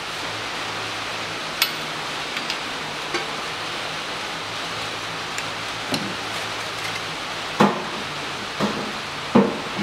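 Scattered metal clinks and knocks from a long wrench and 22 mm socket working on the front strut mounting bolts, over a steady hiss. The two loudest knocks come near the end.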